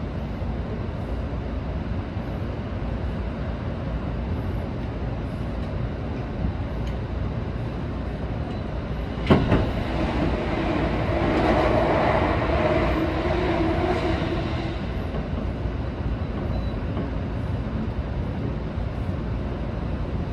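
Seibu 20000 series electric train running on the rails, heard from the front car: a steady rumble of wheels and track. About nine seconds in there is a single sharp thump, followed by about five seconds of louder running with a steady tone before it settles back to the rumble.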